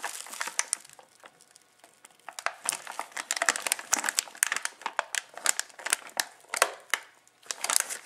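Plastic anti-static bag crinkling and crackling as hands work at it to get it open; sparse crackles at first, then a dense run of crinkling from about two seconds in.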